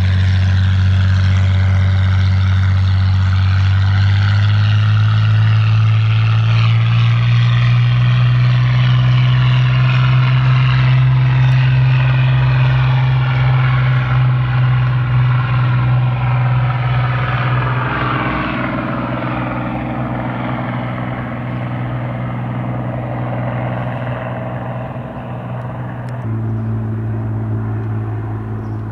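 Hawker Hurricane Mk.I's Rolls-Royce Merlin V12 engine at take-off power as the fighter rolls down the runway, lifts off and climbs away. The engine note rises a few seconds in and then holds steady. It fades gradually through the second half as the plane draws away.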